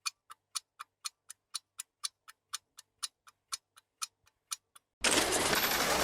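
Clock-like ticking, even and sharp, about four ticks a second. About five seconds in it is cut off by a sudden loud rushing hiss.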